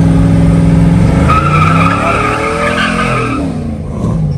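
Pickup truck engine running hard while the truck spins its tires. About a second in, a high tire squeal starts and lasts about two seconds, while the engine pitch swings up and down. The sound fades near the end.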